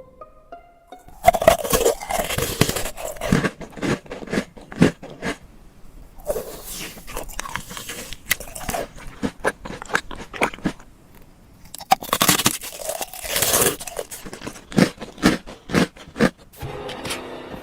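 A person biting into and chewing crunchy food close to the microphone: sharp crunches and crackles, coming in heavier spells about a second in, around six seconds and around twelve seconds.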